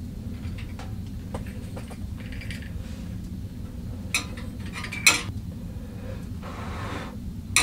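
Coffee grounds poured from a crinkling plastic zip bag into a metal percolator basket, with two sharp metal clinks about a second apart midway, over a low steady rumble.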